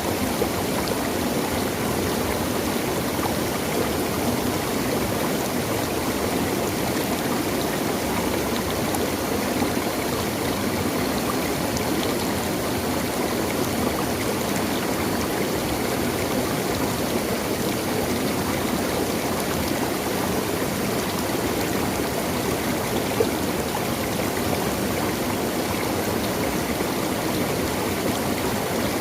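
A natural stream of water flowing steadily, an even, unbroken water sound with no pauses or changes.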